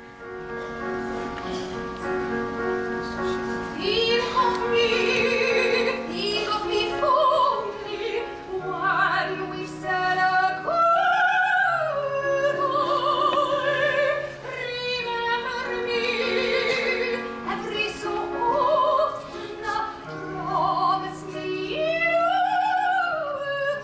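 Operatic music: an orchestra holds sustained chords, and a soprano enters about four seconds in, singing long notes with wide vibrato.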